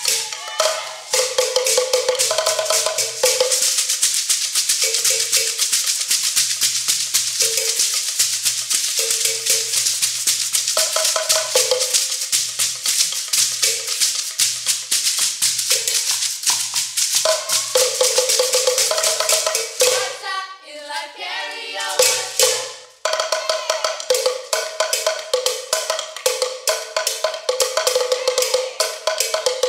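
Sekere, beaded gourd shakers, rattling in a steady fast rhythm over a repeating pitched drum pattern, as Yoruba percussion. The ensemble breaks off briefly about two-thirds of the way through, then resumes.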